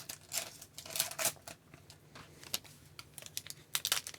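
Trading cards and a foil pack wrapper being handled up close: a string of short, irregular crisp clicks and rustles as cards are flicked through and the next pack is started.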